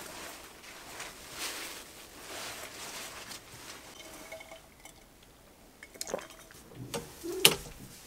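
Clothes rustling and being handled, followed by a few sharp clicks and knocks. The loudest knock comes about seven and a half seconds in.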